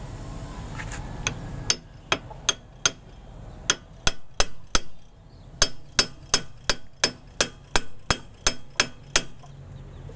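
A hammer striking a steel drift rod held against a Bajaj RE front hub, driving the new wheel bearing in. About twenty sharp metallic knocks come in short runs of roughly three a second, starting a couple of seconds in and stopping shortly before the end.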